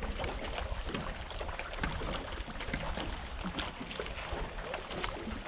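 Wind rumbling on the microphone, with choppy lake water lapping and slapping against the dock and moored boats in many short splashes.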